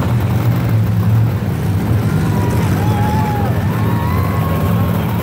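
Monster truck engine running with a steady, deep drone.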